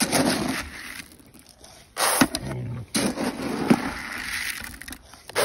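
Footsteps crunching and scraping through dry leaf litter and twigs in a few separate bursts, with a feed bucket being carried and handled.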